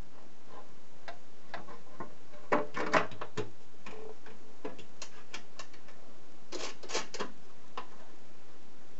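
Irregular clicks and light knocks as hands handle the refitted change-gear cover on the headstock of an Optimum D180x300 Vario mini lathe, the loudest two knocks coming about two and a half to three seconds in and another quick cluster near seven seconds.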